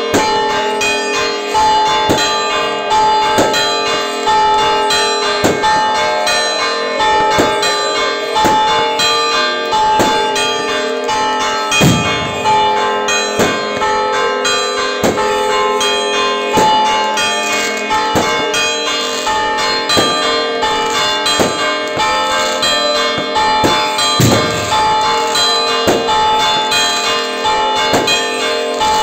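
Church bells pealing festively for the Orthodox Easter Resurrection, struck over and over in quick succession so that their tones ring on and overlap. Two deep booms break through, about twelve seconds in and again about twelve seconds later.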